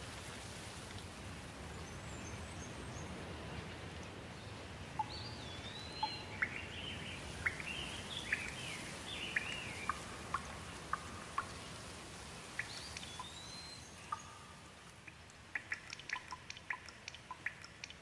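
Steady rainfall with birds calling through it from about five seconds in. Near the end the rain thins, and single drops fall in quick, irregular drips.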